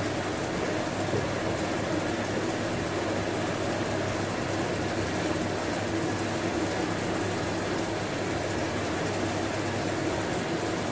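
Spiced coconut-milk sauce simmering and bubbling in the pan, a steady crackling hiss.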